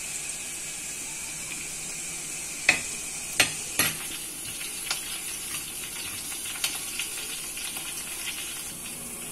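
Oil sizzling steadily in a clay pot as chopped aromatics fry, stirred with a steel spoon. The spoon clinks sharply against the pot three times about three seconds in.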